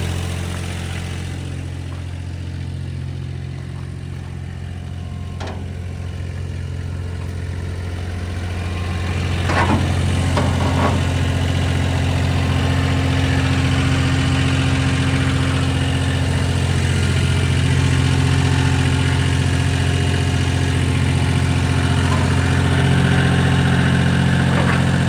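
Clark Bobcat 533 skid steer's diesel engine running steadily. About nine seconds in it picks up and runs a little louder, with a few brief squeaks around then.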